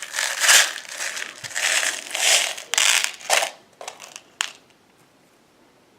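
Crinkly rustling of airgun pellets and their packaging being handled, in dense bursts for about three and a half seconds, followed by a few small sharp clicks and then quiet.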